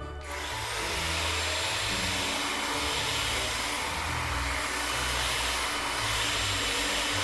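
Eureka Elevate NEC480 cordless stick vacuum running steadily as it is pushed over a hard floor: an even hiss with a faint high motor whine.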